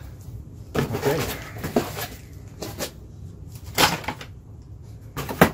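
Cardboard monitor packaging and its bundled cables being handled: a string of separate knocks and scuffs, the loudest a sharp knock near the end.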